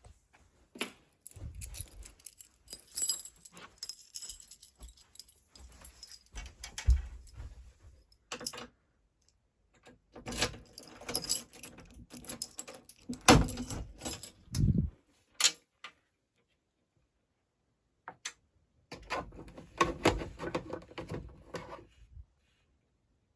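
Irregular clicking and rattling handling noises, like keys or small hard objects being jangled and knocked, in three bouts separated by short silences.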